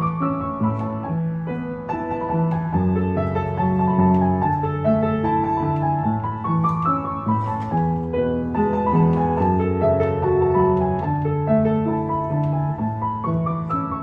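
A Yamaha U3A upright piano, a 131 cm tall model from the 1980s, played continuously: a melody over sustained chords and bass notes that change about once a second.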